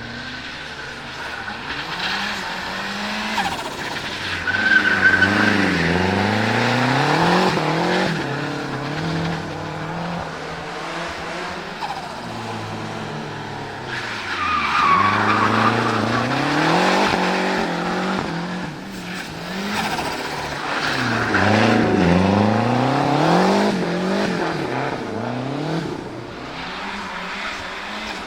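The turbocharged four-cylinder engine of a 1974 Fiat 124 Spider Abarth revs hard and drops back again and again as the car drifts. Its tyres squeal, most clearly about five and fifteen seconds in.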